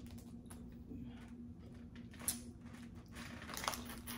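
A big boiled crawfish being broken open and peeled by hand: scattered soft crackles of shell, with two sharper snaps about two and three and a half seconds in, over a faint steady hum.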